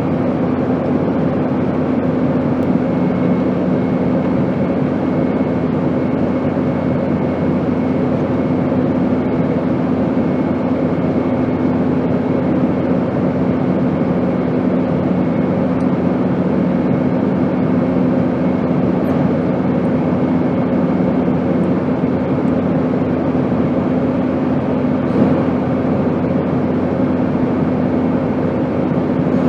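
Steady airplane noise: an even rushing drone with a low hum underneath, unchanging in level.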